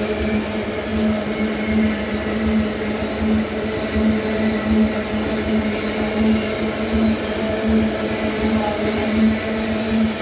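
Loaded iron-ore gondola wagons rolling past on the rails: a steady rumble of wheels on track with a humming tone that swells and fades every second or so.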